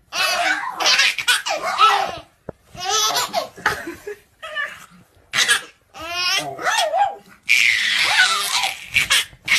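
A baby laughing hard in repeated bursts of belly laughter, with a louder, breathier peal about three-quarters of the way through.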